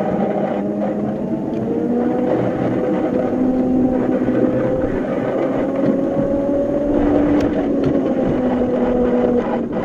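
Battery-electric miniature locomotive on 7½-inch gauge track running steadily: the electric drive whines, rising a little in pitch as it gathers speed and easing off near the end, over the rumble of the wheels on the rails.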